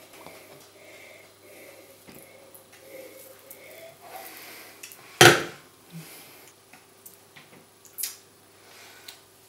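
Gulping and slurping as red wine is drunk from a glass, then one loud sharp knock of the glass on the wooden tabletop about five seconds in, followed by two lighter clinks.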